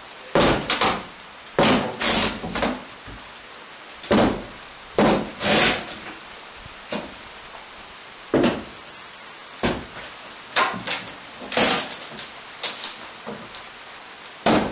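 Wooden boards of an old barn wall being pried off: a string of sharp wooden creaks, squeaks and knocks at irregular intervals.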